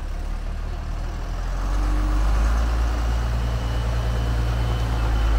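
Diesel engine of a heavy off-road expedition truck running with a low rumble, growing louder about two seconds in and then holding steady.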